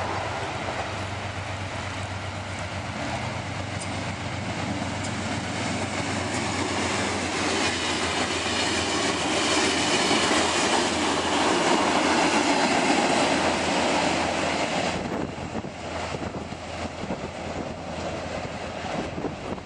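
Amtrak passenger train passing at speed, its wheels clattering over the rails. The noise builds as the coaches go by, then falls away about fifteen seconds in as the train moves off.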